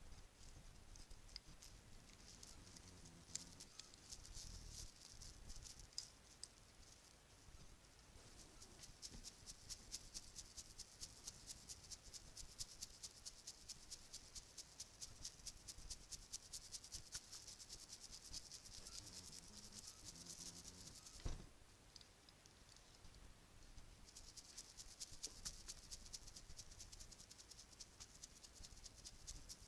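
Bracelets handled close to the microphone: fast runs of small, light clicks and rattles, with one soft knock and a brief pause about two-thirds through.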